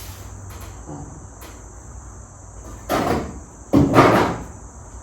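A loose sheet-metal body panel being handled during test-fitting: two loud clatters, about three seconds in and again just before four seconds, the second starting abruptly and louder, over a steady high-pitched whine.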